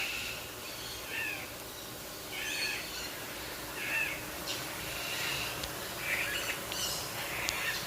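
Birds calling: one bird repeats a short two-note call about every second and a quarter, and other chirps and calls crowd in during the second half.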